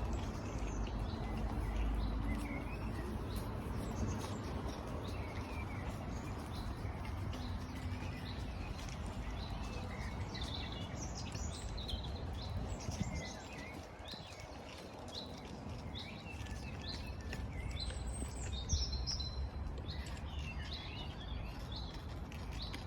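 Wild birds chirping and singing, many short calls and trills overlapping, over a steady low background noise.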